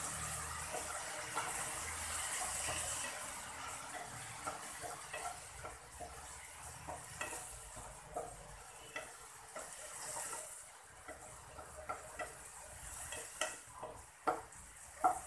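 Wooden spatula stirring and scraping mushrooms and tomato around a frying pan, over a sizzle of frying. The stirring gives many light scrapes and clicks, and two louder knocks come near the end. The sizzle dies down about two-thirds of the way through.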